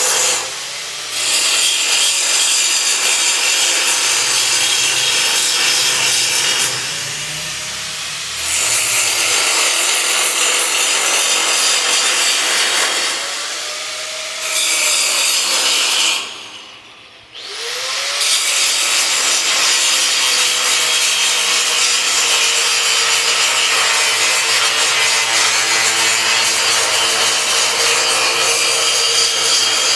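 Electric power tool working metal, a loud rasping cut or grind in long stretches. Each time it comes back on, its motor whines up to speed. It eases off several times and stops for about a second about two-thirds through before spinning up again.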